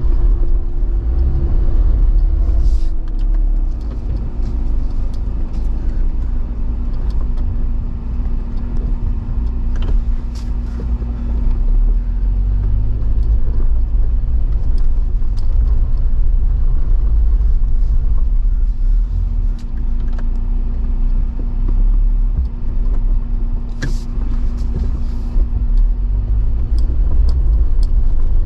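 Jeep engine running steadily at low revs on an off-road climb, with a deep rumble under it and a few sharp knocks now and then.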